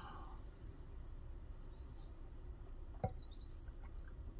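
Faint, high bird chirps in short runs over a low, steady background rumble, with a single knock about three seconds in.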